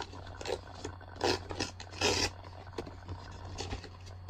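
Paper envelope being torn open by hand: crinkling and rustling paper with two louder rips, about a second and about two seconds in, over a steady low hum.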